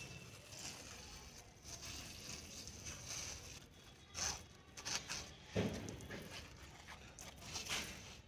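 Hand trigger spray bottle squirting a solution onto a sapling's leaves: a series of short hissing sprays, a few seconds apart.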